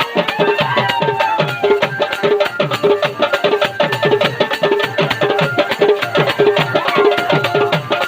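Wedding band (baja) music: fast, even dholki drumming with a wavering melody line above it at times.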